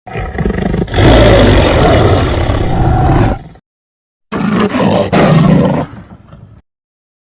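Black panther creature sound effect: two big-cat roars. The first builds from a low rumble to a long, loud roar lasting about three and a half seconds. After a short break comes a second, shorter roar that fades out.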